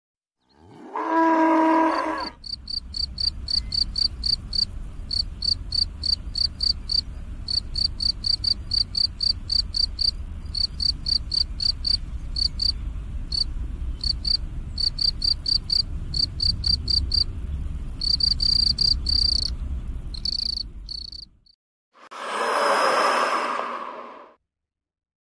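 Field cricket chirping in a steady run of about three to four chirps a second over a low rumble. The chirping follows a brief low call from a bison at the start. Near the end a short breathy hiss takes over.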